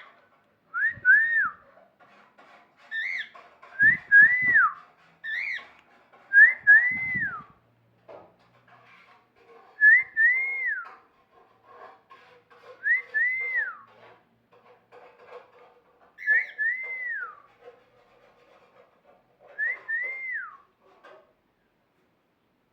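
Parrot whistling the same short phrase over and over, every two to three seconds. Each phrase is a quick rising note then a longer note that rises and glides down.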